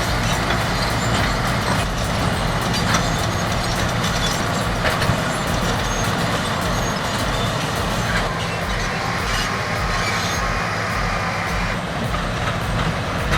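Heavy bulldozer diesel engines running steadily with a low drone, with occasional sharp clanks.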